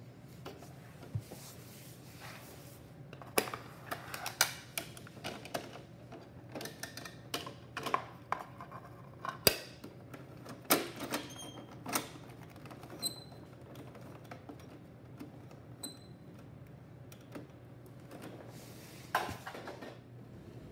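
Hard plastic clicks and clatter of a Bruder toy rear-loader garbage truck and its toy wheelie bins being handled, as a hand works the rear bin-lift. A quick run of clicks and knocks comes between about three and twelve seconds in, then a couple of short high squeaks and a scrape near the end.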